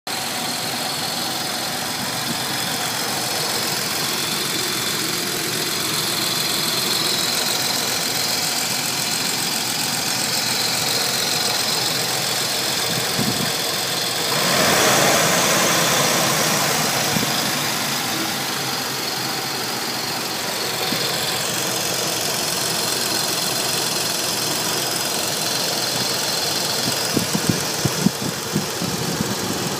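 Nissan 300ZX Twin Turbo's VG30DETT V6 idling with a steady hiss, the sign of a vacuum leak. The hiss swells louder for about two seconds around halfway, and a few short knocks come near the end.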